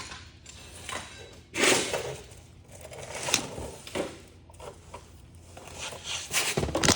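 Irregular handling noises: rustling, scraping and a few sharp clicks, with a busier cluster of clicks near the end.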